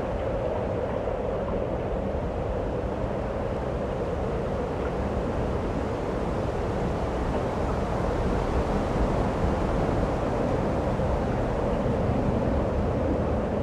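A steady rushing, rumbling noise like wind, unbroken and even throughout, with no distinct events.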